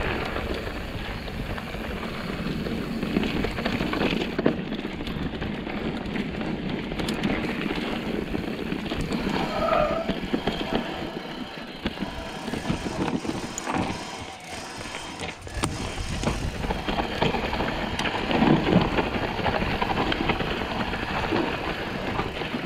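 Mountain bike descending a steep, rocky, loose dirt trail: tyres rolling and skidding over dirt and rock, the bike's frame and chain rattling over the bumps, with wind buffeting the microphone at times.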